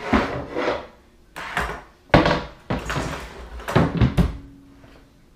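Kitchen clatter: several sharp knocks and bangs a second or so apart, from things being handled and set down in a kitchen.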